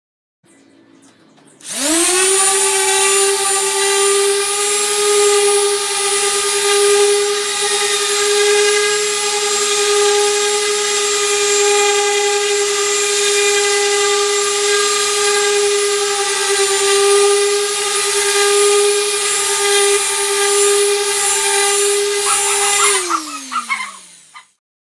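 Handheld electric power tool working the wooden tabletop: its motor spins up about two seconds in, runs with a steady whine for about twenty seconds, then is switched off and winds down with falling pitch.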